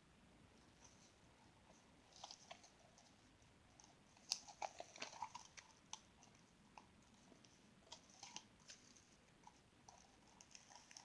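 Slime being squished and worked by hand: faint, scattered sticky clicks and crackles, busiest around four to five and a half seconds in.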